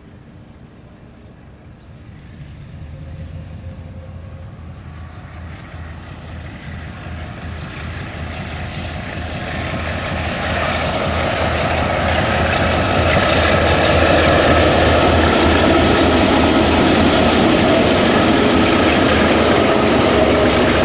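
Two diesel-electric locomotives, DX class 5108 and DC class 4277, hauling a long freight train toward and past the listener: the low drone of the diesel engines grows steadily louder over about twelve seconds, then stays loud and steady as the locomotives draw level.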